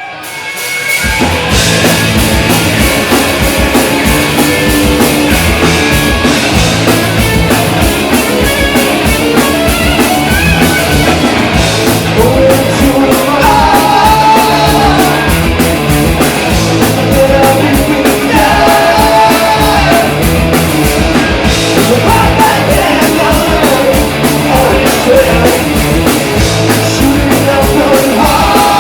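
A punk rock band playing live and loud, with a fast, steady beat and full band sound.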